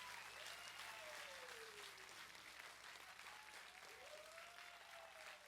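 Faint applause from an audience, with a few faint gliding whistle-like tones over it.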